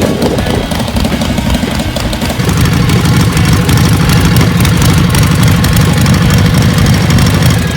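Motorcycle engine running steadily, growing louder about two and a half seconds in.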